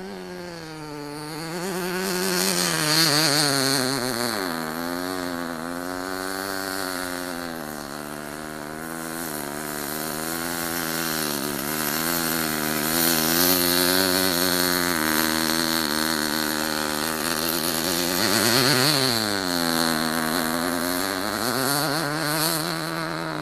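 ENYA 19V two-stroke glow engine of a 1/8-scale RC buggy running hard as the car drives, its pitch rising and falling over and over with the throttle. About three quarters of the way through, the pitch climbs sharply and then drops quickly.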